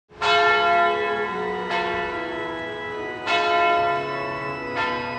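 A bell tolling four times, about a second and a half apart, each stroke ringing on and slowly dying away, over low held notes.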